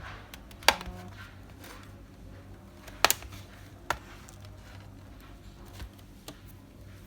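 Plastic back cover of a Samsung Tab Pro T525 tablet being prised off by fingernail: sharp clicks as the clips snap loose, the loudest three about a second in, at three seconds and at four seconds.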